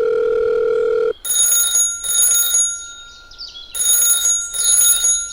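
Telephone call sound effect: a steady dial tone for about a second, then a telephone ringing in a double-ring pattern, two rings, a pause, and two more rings.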